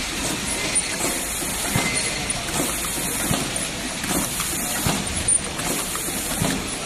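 Stick pack cartoning machine running in its cycle: a steady mechanical clatter with a low knock about every second and a half, and repeated short bursts of compressed-air hiss from its pneumatic actuators.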